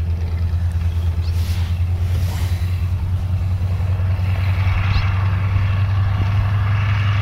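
Nanchang CJ-6's nine-cylinder radial engine running at low taxi power, a steady low drone that grows a little louder over the first few seconds as the plane taxis closer.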